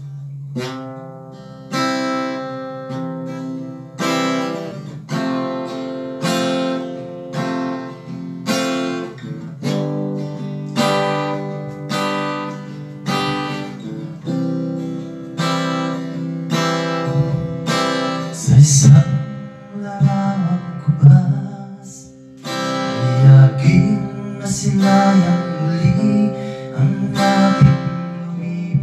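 Acoustic guitar strummed in chords at a slow, even pace. In the later part a man's singing voice joins the guitar.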